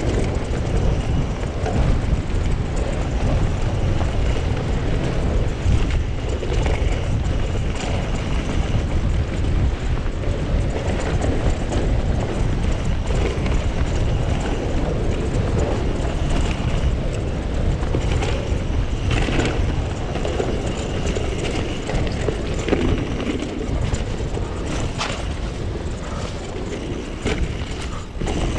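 Mountain bike in motion on a trail: steady wind buffeting on the microphone and tyres rumbling over the ground, with a few sharp rattles and knocks from the bike.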